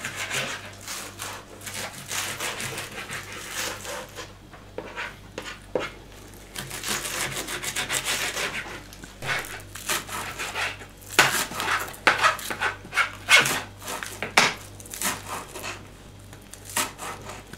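Knives chopping dill and green onion on plastic cutting boards: quick, uneven runs of knocks and scrapes, with short pauses between the runs.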